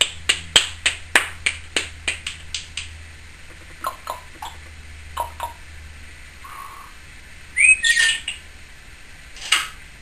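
Timneh African grey parrot making a rapid run of sharp clicks, about four a second, then a few softer clicks. Near the end come two short squawks, the first loud and opening with a brief rising whistle.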